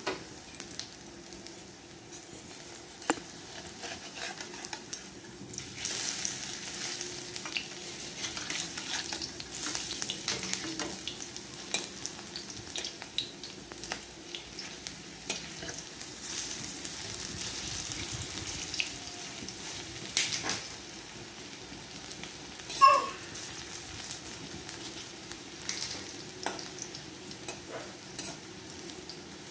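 Pakoras sizzling as they fry in oil in a metal kadai, turned with a metal spatula that scrapes and clicks against the pan. The sizzle gets louder about six seconds in, and one brief, sharper sound stands out about three-quarters of the way through.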